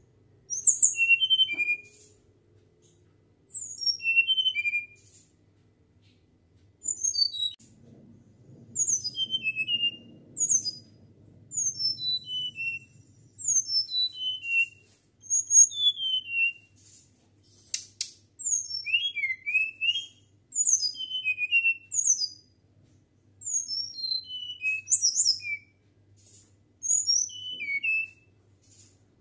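Caged flycatcher singing in flute-like whistles. It gives phrase after phrase of short, quick, downward-slurred high notes, with a new phrase every second or two.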